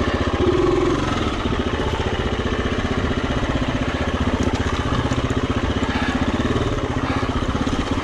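Single-cylinder four-stroke dirt bike engine running steadily on a trail ride, with an even, fast beat of firing pulses.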